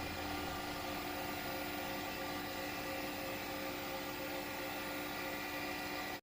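Steady drone of running shipboard machinery: a dense mix of constant tones over an even hiss at a steady level. It cuts off abruptly near the end.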